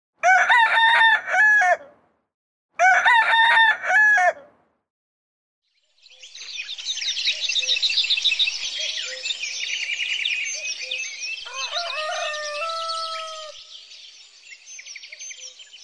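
A rooster crows twice, each a full cock-a-doodle-doo. After a short pause, a chorus of small songbirds chirps and twitters, fading near the end.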